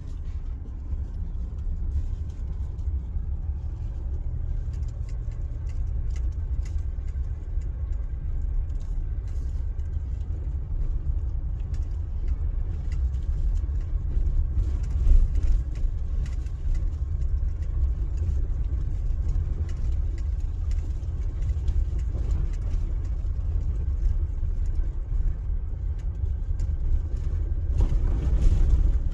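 Vehicle driving slowly over a rough dirt trail: a steady low rumble of engine and tyres, with scattered knocks and rattles from the bumpy track, one louder about halfway through.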